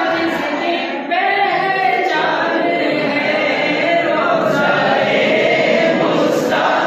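Unaccompanied singing of an Urdu naat, a devotional poem in praise of the Prophet, with long held, ornamented notes and a brief dip about a second in.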